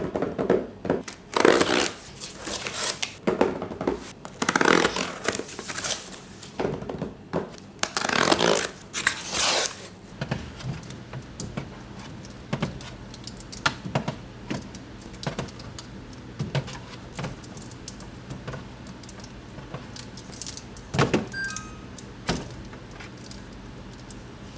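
Groceries being handled and stocked into a refrigerator. Plastic packaging rustles and crinkles loudly for the first ten seconds, then containers click and knock as they are set down over a low steady hum, with a brief ringing clink a little past the 20-second mark.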